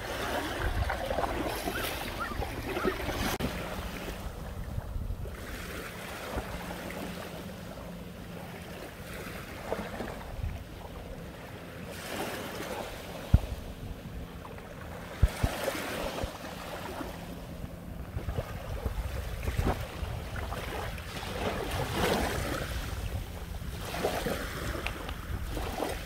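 Small waves washing up and back over a shore of crushed shells and pebbles, swelling every few seconds, with wind rumbling on the microphone at times. A few sharp clicks are heard about halfway through.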